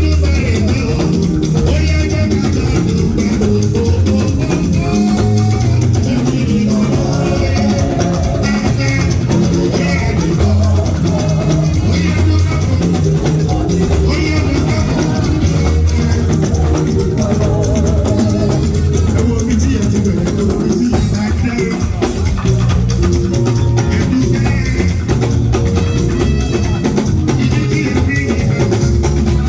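Band music with drum kit and guitar over a steady bass line, and a voice singing a melody.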